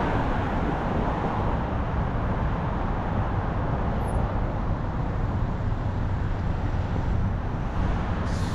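Road traffic at a busy intersection: cars and a pickup truck driving past, a steady rumble of engines and tyres, a little louder at the start as a vehicle goes by.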